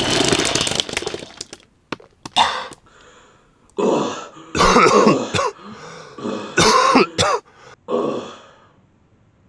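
A person's voice making vomiting noises: a long heaving retch at first, then about six short gagging retches.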